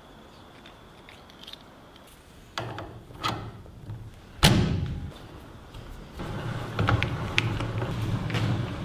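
Metal handling clunks and one loud thud about halfway through as a crank handle is fitted onto a band saw vise's lead screw, followed by a low steady rumble with light clicks as the vise is worked.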